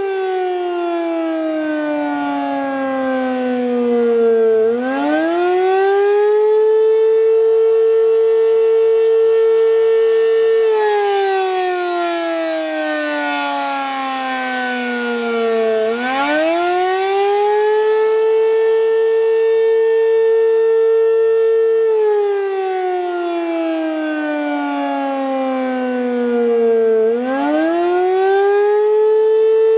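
American Signal RM-127 rotating mechanical outdoor warning siren sounding the Attack signal, a wail. Its tone holds high, slides slowly down for about four seconds, then climbs quickly back up, three times over.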